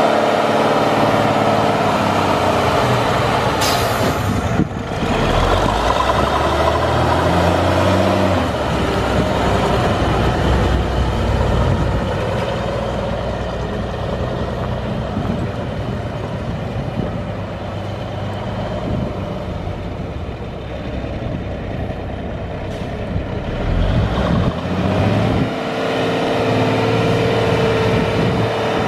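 Cummins NHC-250 855 six-cylinder diesel of an M923 military truck running, its pitch rising and falling with engine speed and settling to a steady note near the end. A brief hiss about four seconds in.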